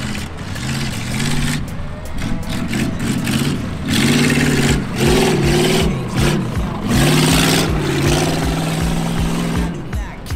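Off-road truck engine revving hard, its pitch climbing and dropping over and over, with a loud rush of noise in the middle.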